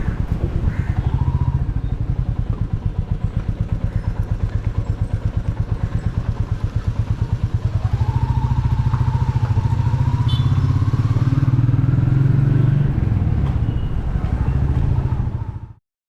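Royal Enfield Meteor 350's single-cylinder engine running with a steady, rapid exhaust beat, a little louder from about halfway through. The sound cuts off suddenly near the end.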